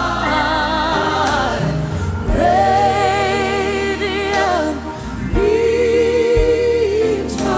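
Music with singing: long held vocal notes with a strong vibrato, over a steady low accompaniment.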